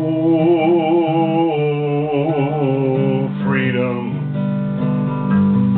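Steel-string acoustic guitar accompaniment under a man's held sung note with vibrato. The note lasts about three seconds, then the guitar carries on alone.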